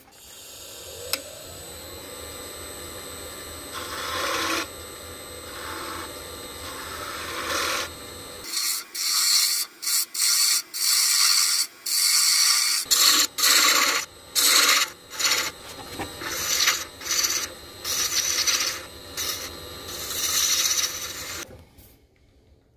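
Tool scraping against a spinning resin-impregnated maple blank on a wood lathe: a steady hiss at first, then many short, loud scraping passes in quick succession from about a third of the way in, stopping shortly before the end.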